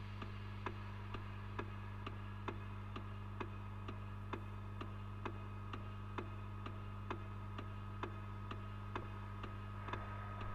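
Clock ticking steadily, about two ticks a second, over a low steady hum.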